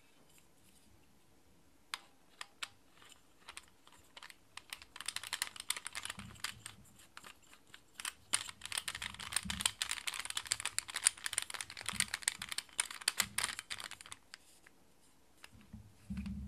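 Replica SilencerCo Osprey suppressor being handled and screwed onto an airsoft pistol's threaded barrel: scattered clicks, then a dense run of rapid small clicks and scraping for several seconds, with a few dull knocks.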